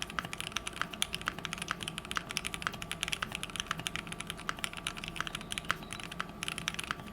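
Fast, continuous typing on an Adélie custom mechanical keyboard with a brass plate, lubed and filmed linear switches (Gateron Red Ink housings with Kailh Red and Durock long stems) and PBT keycaps: a dense, irregular stream of keystroke clacks with a short pause a little after six seconds in.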